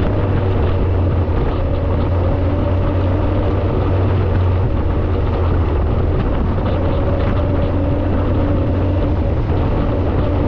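Vehicle engine running steadily under way, a continuous low drone with road and wind noise and no change in speed.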